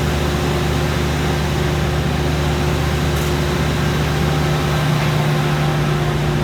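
Industrial wide-belt sander running with its dust-collection vacuum while a board feeds through: a steady machine hum over a noise haze. The deepest part of the hum shifts about five seconds in.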